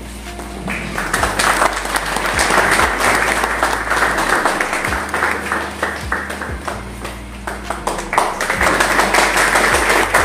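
A room full of people applauding, starting about a second in, easing a little past the middle and building again near the end.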